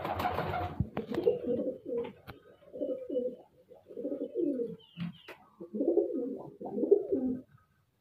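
Domestic fancy pigeons cooing in several runs of low, warbling, repeated phrases. There is a short rustling burst right at the start and a few faint clicks.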